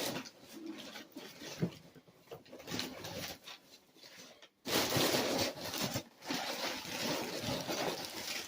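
Rustling and crinkling of packaging being handled, with scattered clicks and knocks, in two louder bouts, the second starting near the middle.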